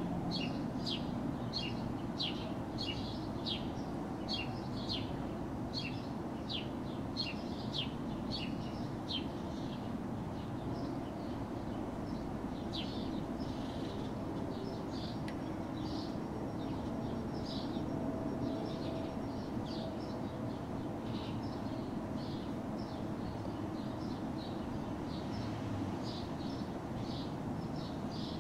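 A bird chirping over and over in short high chirps, about two a second at first and more irregular after about ten seconds, over a steady low rumble of distant city traffic.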